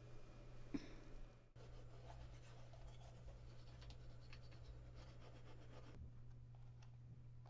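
Faint toothbrush scrubbing against teeth, a run of soft scratchy strokes, over a low steady room hum.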